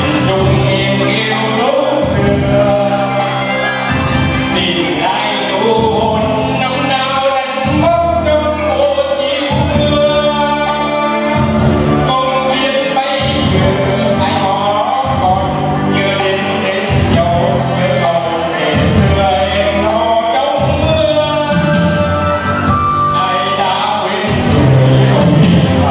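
A man singing live into a microphone, backed by saxophone and keyboard with a steady beat.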